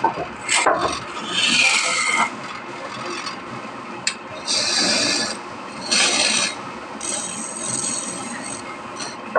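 Wood being worked by hand with an abrasive or scraping tool, in several separate strokes.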